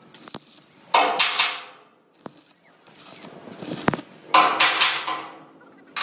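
Steel parts clattering and scraping against each other in a metal fabrication shop. There are two short, loud bursts, one about a second in and one past four seconds, with a few sharp clicks between them.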